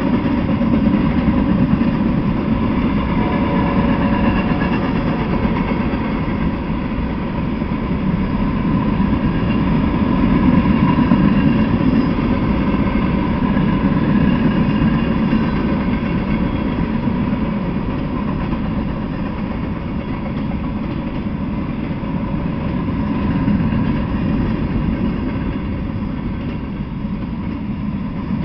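Freight cars (tank car, covered hoppers, boxcars) rolling past at steady speed: a continuous rumble and clatter of steel wheels on the rails.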